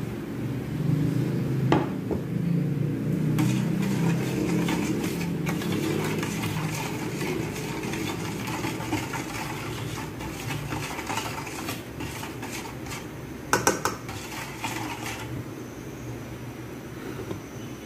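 A metal spoon clinking and scraping against a stainless steel bowl while stirring a liquid soy sauce and vinegar marinade, with a quick cluster of sharper clinks near the end. A steady low rumble runs underneath.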